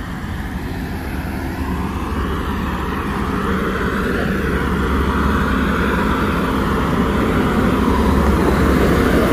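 Heavy construction vehicle's engine running as it drives along the site road, growing steadily louder as it approaches and passes close by.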